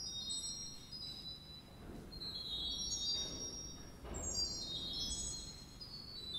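Cathedral pipe organ playing quiet, very high sustained notes that enter one after another in overlapping, staggered cascades. Each note is held briefly while others step in above or below it, over a faint low rumble.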